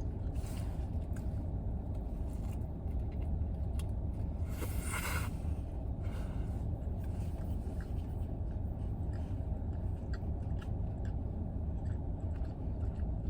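Steady low rumble inside a parked car with its engine idling, with a brief rustle about five seconds in and small scattered clicks while someone eats a sandwich.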